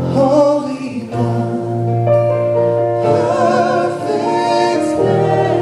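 Live church worship band playing with voices singing: long held chords over a steady bass, the singers' notes wavering with vibrato.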